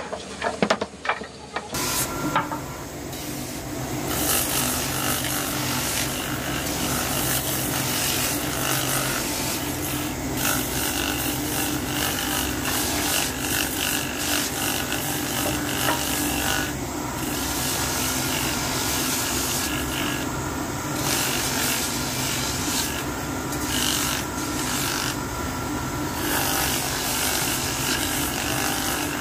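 Hand plane shaving a wooden cricket bat blade in short strokes, then, about two seconds in, a bench-mounted drum sanding machine running with a steady motor hum while a cricket bat is pressed against the spinning sanding drum, the wood rasping.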